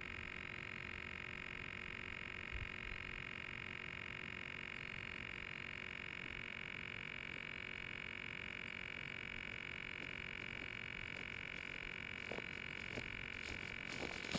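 Steady faint high-pitched electronic whine with a low rumble underneath, picked up by a camera microphone resting on a landed drone; a few soft ticks and rustles near the end.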